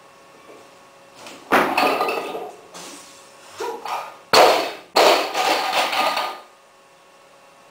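Barbell loaded with bumper plates, about 97.5 kg, lifted in a squat clean: the plates clank as the bar comes off the platform and is caught, then a little over four seconds in the bar is dropped, landing with a loud bang and a second bang a moment later, the plates rattling for about a second and a half after.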